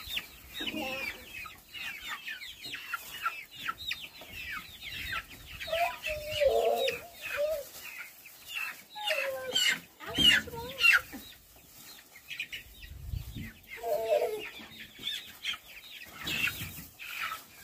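Young chickens peeping, a steady run of short, overlapping falling chirps, with a few lower calls about six and fourteen seconds in.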